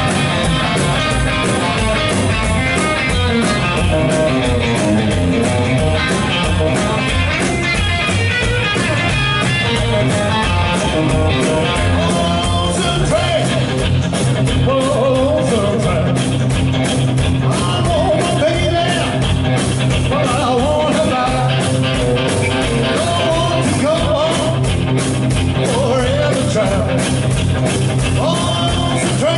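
Rockabilly band playing live: electric hollowbody guitar, upright double bass and drum kit. The first half is guitar-led; a man's lead vocal comes in about halfway through.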